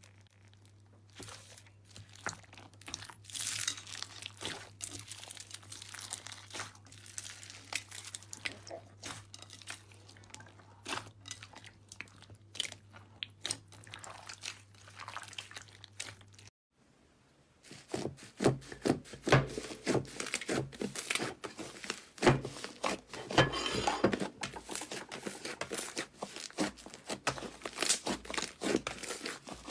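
Slime being squeezed, poked and stretched by hand, giving many small crackling and popping clicks. A short break comes a little over halfway through, after which the crackling is louder and denser.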